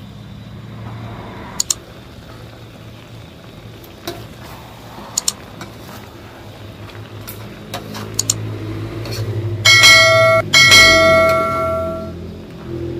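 A few sharp clicks, then a bright bell rings loudly twice in quick succession near the end: the click-and-bell sound effect of a subscribe-button animation. Under it, vegetables and herbs are tossed in a wok with a metal spatula.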